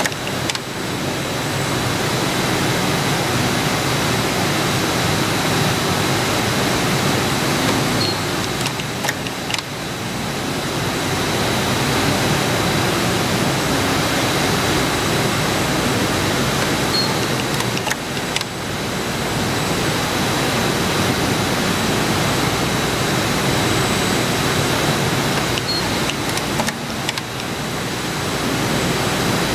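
Steady hiss and hum of an automated fiber placement robot laying dry carbon fiber with laser heating, with a faint steady high tone over it. The noise dips briefly about every nine seconds.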